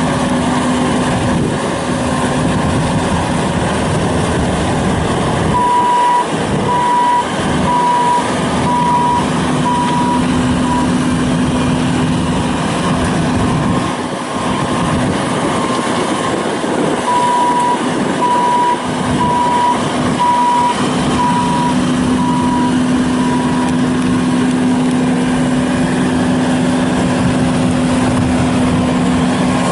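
Bobcat S750 skid steer loader's diesel engine running steadily, with its backup alarm beeping twice in runs of evenly spaced beeps as the machine reverses.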